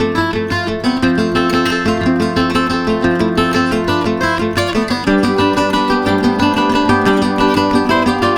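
Background music: acoustic guitar played with a steady plucked and strummed rhythm, changing chord about five seconds in.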